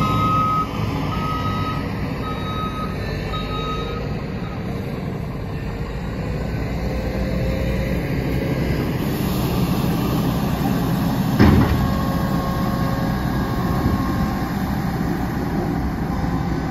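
Heavy diesel engines of a Mack LE garbage truck and a wheel loader running steadily, with a vehicle's reversing beeps that stop a few seconds in. One short, sharp burst sounds about eleven seconds in.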